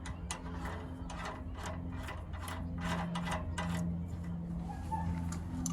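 Irregular light metallic clicks and ticks, several a second, as a castle nut is worked onto the steering linkage stud by hand, over a steady low hum.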